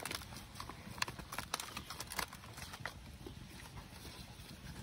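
Fresh banana leaves rustling and crackling as they are folded and pressed into a parcel, with irregular sharp crinkles.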